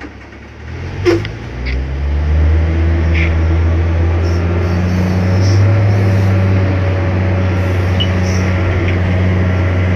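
Excavator diesel engine running, heard from inside the cab as a steady low drone. About a second in its level climbs as the bucket digs into the rock, and it settles into a louder, even drone. A single sharp clank comes about a second in.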